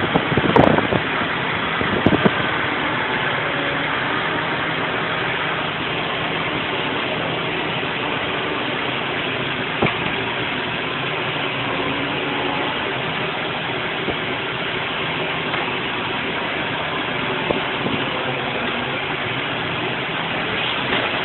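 An engine running steadily, with a few sharp knocks in the first couple of seconds.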